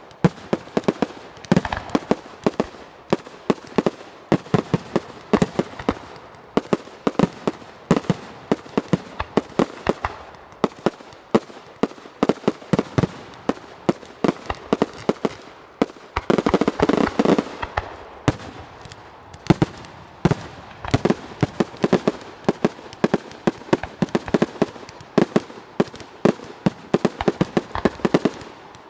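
Fireworks going off in a fast, unbroken run of bangs and crackles, several a second. About halfway through comes a denser, louder barrage lasting a couple of seconds.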